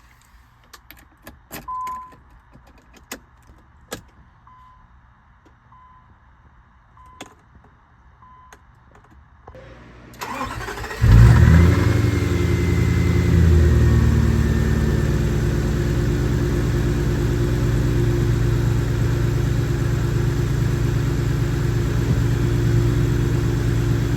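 A few clicks and soft beeps, then a 1999 Infiniti Q45's 4.1-litre V8 cranks and catches about eleven seconds in. It flares up briefly and settles into a steady idle. This is the first start after an intake manifold rebuild with new injectors, knock sensors and gaskets.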